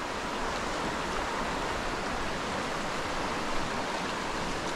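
Shallow rocky river flowing over stones and riffles: a steady rush of moving water.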